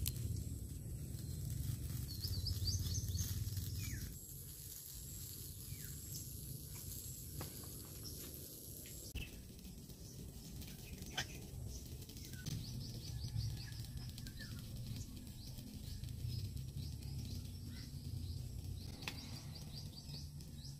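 Rural outdoor ambience: a steady low rumble with birds chirping on and off, and a few light clicks.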